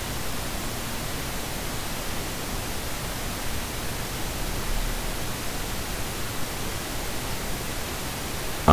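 Steady, even hiss of a microphone's recording noise, with no other sound.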